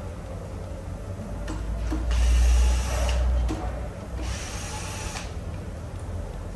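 A power tool run in two short bursts of about a second each, with a noisy hiss and a low rumble.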